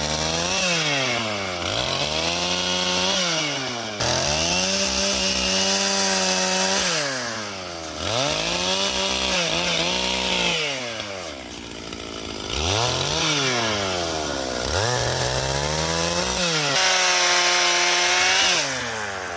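Chainsaw cutting firewood: the two-stroke engine revs up repeatedly and holds at full speed through each cut, then drops back toward idle, about every few seconds.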